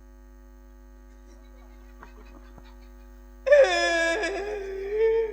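Steady mains hum from an amplified stage sound system. About three and a half seconds in, a loud drawn-out voice breaks in and is held on a long, wavering note.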